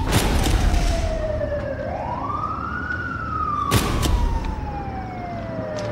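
Emergency-vehicle siren wailing, sweeping up once about two seconds in and then sliding slowly down, over a low rumble. Two sharp cracks come near the start and about four seconds in.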